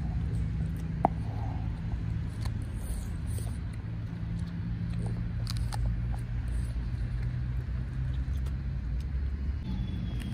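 Steady low hum of a running engine, with faint snuffling and small clicks from a French bulldog nosing and chewing in the grass. One sharp click about a second in.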